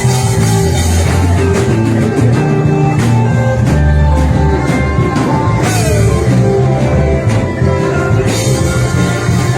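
Worship band music with no singing: guitar and bass over a drum kit, with a falling slide in pitch a little past the middle.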